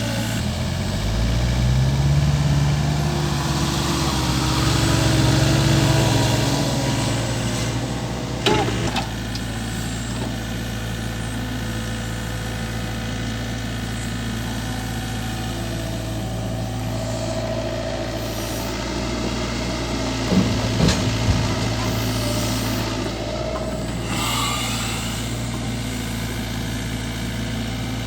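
Heavy diesel engine of a work vehicle running at idle. It revs up about a second in, holds, and eases back down around seven seconds. A sharp knock comes at about eight and a half seconds, and a few clanks about twenty seconds in.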